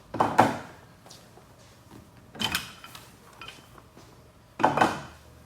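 A massage chair's padded arm bolsters being pulled off, heard as three short rasping pulls about two seconds apart.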